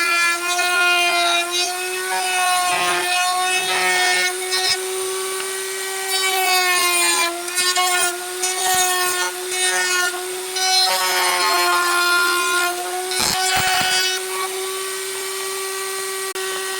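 Wood lathe running with a steady tone, while a turning tool cuts the spinning wood in repeated scraping bursts.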